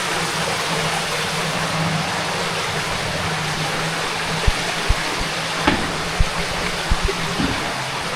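Steady rush of flowing cave water, with a few dull low bumps in the second half.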